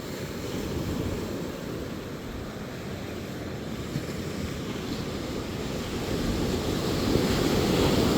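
Ocean surf breaking and washing on the shore: a steady rushing that swells louder toward the end and cuts off abruptly.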